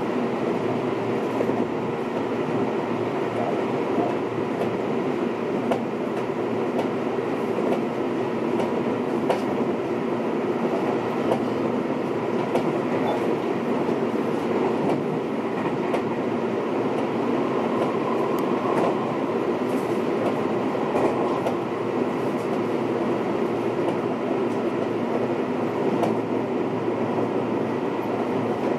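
Seibu 20000 series electric train's motor car running at speed, heard from inside the car: a steady rumble of wheels on rail with a few faint clicks from the track.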